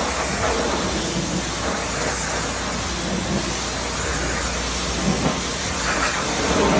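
Pressure washer jet spraying water against a steel tank, a steady hiss with a constant low rumble underneath, rinsing off calcium and rust remover.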